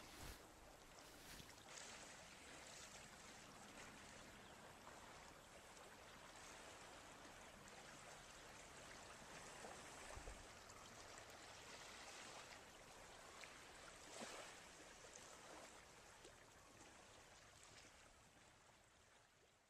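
Faint river ambience of softly running water, with a few faint knocks, fading out near the end.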